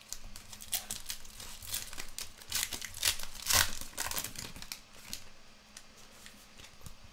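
Foil wrapper of a trading-card pack being torn open and crinkled by hand: a run of crackling rustles, loudest about three and a half seconds in.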